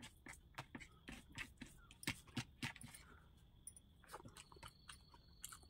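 Close-up eating sounds of a person eating rice by hand: faint, irregular wet clicks and smacks from chewing and from the fingers working the rice.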